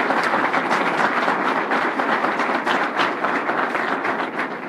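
Audience applauding, a dense clatter of many hands clapping that dies away near the end.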